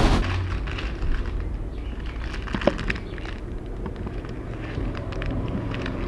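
Thin plastic bags crinkling and rustling as a clear bag of eggs is pushed into a blue plastic carry bag, with irregular crackles throughout and a sharper click about two and a half seconds in, over a low steady rumble.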